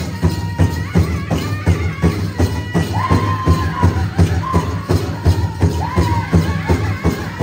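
Powwow drum group playing a chicken dance song: a big drum struck in a steady beat, about three strokes a second, under high-pitched group singing with held notes that fall away.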